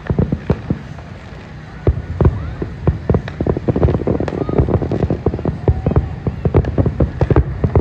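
Aerial fireworks shells bursting in a rapid barrage of bangs and crackles, a few at first and then a dense run of reports from about two seconds in.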